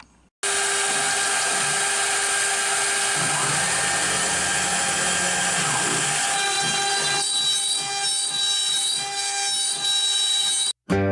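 A DIY CNC router's spindle runs with a steady high whine while it carves a wood sign. The tone shifts slightly past the middle. The sound starts abruptly about half a second in and cuts off just before the end.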